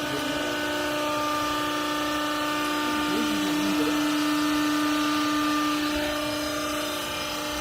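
Hydraulic baling press's motor and pump running with a steady whine.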